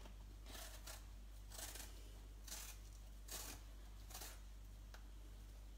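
Vegetable peeler scraping the skin off an apple: five faint scraping strokes, about one a second.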